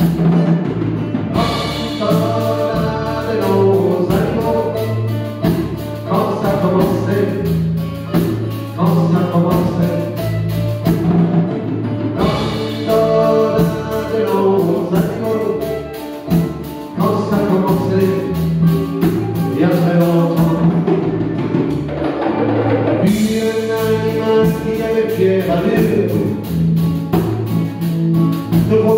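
Live acoustic band playing a song: acoustic guitars strummed and picked over an upright bass, with a woman singing.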